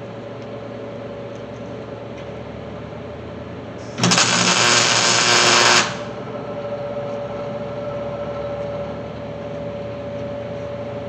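MIG welder running a weld on a steel truck frame, tacking in a C-notch: one loud steady crackle that starts about four seconds in, lasts just under two seconds and cuts off, over a steady background hum.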